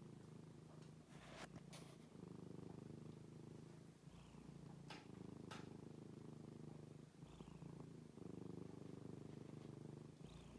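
Ginger-and-white cat purring steadily and softly, in long stretches broken by short pauses every few seconds: a happy, contented cat. A few faint clicks sound over it.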